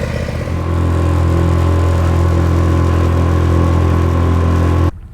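A small boat's outboard motor running at a steady pitch, getting louder about a second in, then stopping abruptly near the end.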